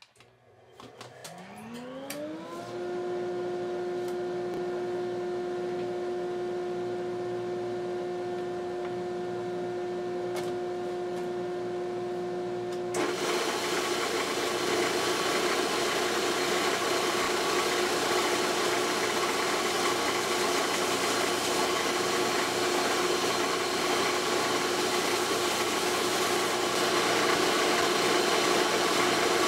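A workshop dust collector, switched on by remote, spins up with a rising whine and settles into a steady hum. About halfway through, a belt sander with a 120-grit belt starts, adding a louder, steady rushing noise.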